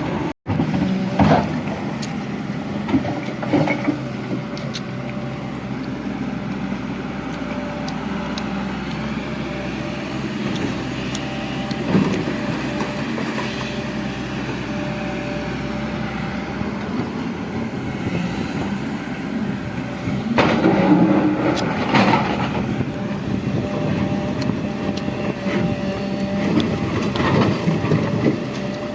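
JCB JS215 tracked excavator's diesel engine running steadily under work, with scattered metallic clanks and knocks, a cluster of them about two-thirds of the way through.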